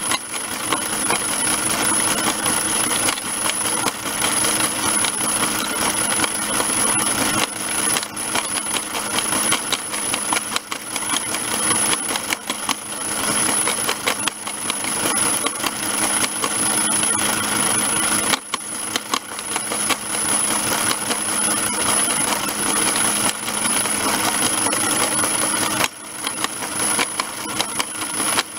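Model stone-crushing plant running: a steady electric-motor whine with a dense, continuous clatter of gravel rattling and clinking through the crusher.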